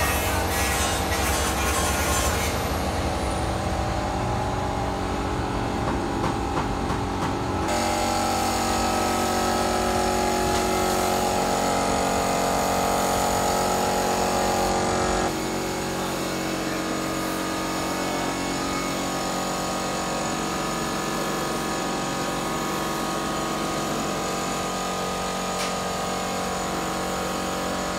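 Gravity-feed air spray gun hissing steadily as it sprays paint onto plastic car door trim panels, over a steady mechanical hum. The sound shifts abruptly twice, about a quarter and about halfway through.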